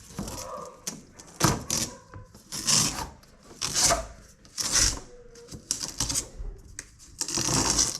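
Dry-rotted, brittle window screen mesh being torn and scraped out of its frame in about five short rasping bursts, the last one longer.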